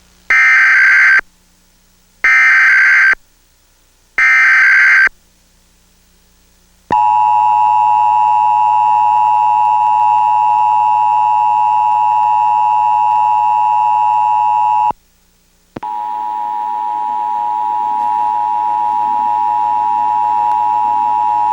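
Emergency Alert System broadcast test signal: three one-second bursts of SAME digital header data about two seconds apart, then the two-tone attention signal (853 and 960 Hz sounded together) held steady for about eight seconds. It breaks off for about a second and then starts again.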